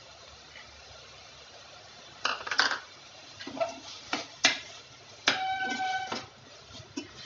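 A metal spoon scraping and tapping against the side and bottom of a metal pot while stirring chopped vegetables in gravy. A few quick scrapes and taps start about two seconds in, followed by a longer scrape that makes the pot ring, and one last tap near the end.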